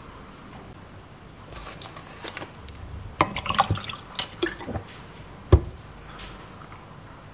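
Water poured from a plastic bottle into a glass of ice cubes, with splashing and sharp clicks of ice against the glass. About five and a half seconds in, the bottle is set down on the counter with a single loud knock.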